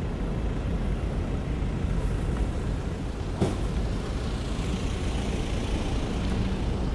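Steady low rumble of wind and road noise from a bicycle riding along a city street, with a single sharp click about halfway through.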